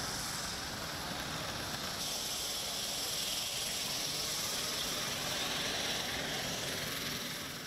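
Steady rushing hiss of a running aircraft engine, a little fuller from about two seconds in.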